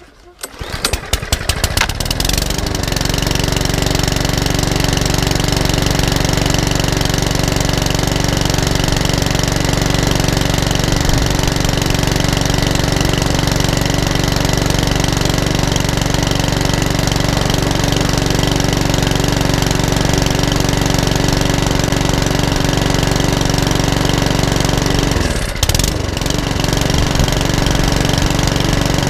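Mountfield 414 lawnmower's four-stroke engine pull-started. It catches within about two seconds and then runs at a steady speed, with one brief dip in revs about 25 seconds in. It runs evenly without hunting or surging, its carburettor freshly ultrasonically cleaned.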